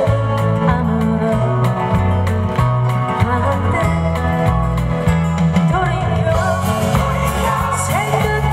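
A woman singing a Korean ballad live, playing acoustic guitar over a steady bass line.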